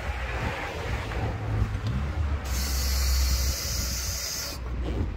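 Forklift engine running with a steady low rumble, swelling heavier for a second or so near the middle as it is driven and steered. A steady high hiss joins in about halfway through and cuts off after about two seconds.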